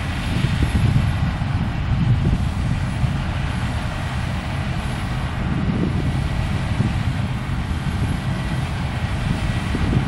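Claas Lexion 670 combine harvester running steadily while it cuts barley: a constant engine drone with threshing and header noise and a faint steady whine.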